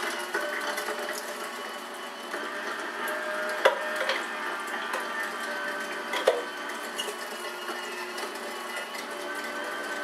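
Cabela's electric meat grinder running steadily with a motor whine while grinding venison through the large cutting plate. Two short, sharp knocks stand out, one a little under four seconds in and another about two and a half seconds later.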